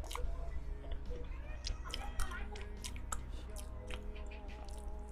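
Close-miked chewing of soft cake, with small wet mouth clicks scattered through.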